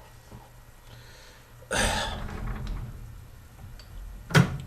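Handling noises at a metal lathe: a sudden scraping clatter about two seconds in that fades away, then a single sharp click near the end.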